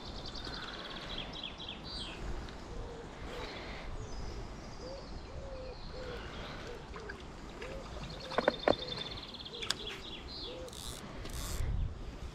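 Birds singing: rapid high trills that come and go, with a string of short lower calls in the middle, over a low wind rumble on the microphone. A few sharp clicks come about two-thirds of the way through.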